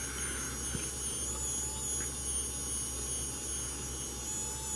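3D printing pen's small filament-feed motor and cooling fan running steadily, a low hum with a thin high whine.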